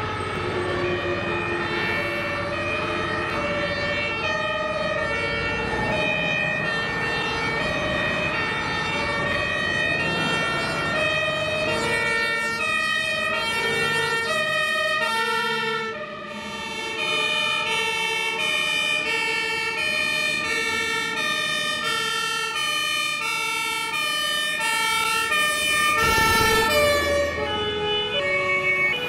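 German fire trucks' two-tone sirens (Martinshorn) sounding, a steady alternation of two notes with several horns overlapping at different pitches. About halfway the sound cuts to another truck's two-tone horn, and near the end there is a brief, loud, low burst.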